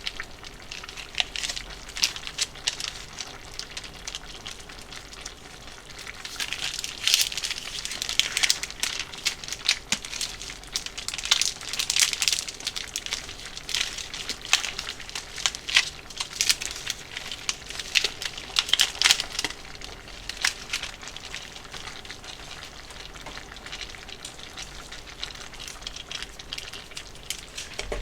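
Food frying in a pan, sizzling with dense, irregular crackles and pops that come and go in busier stretches.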